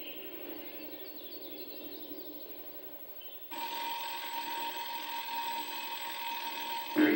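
Soundtrack birds chirping faintly and fading away, then, about halfway through, an alarm-clock bell starts ringing steadily, the morning wake-up signal for the children asleep in bed.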